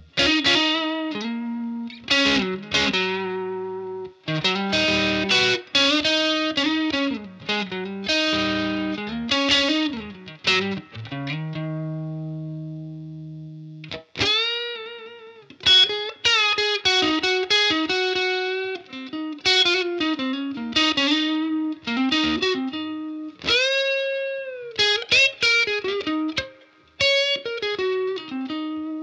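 Fender Stratocaster electric guitar played through the Universal Audio OX Box's tweed 1x12 amp-and-speaker simulation: a lead solo of quick single-note runs and string bends, with one long held note about twelve seconds in.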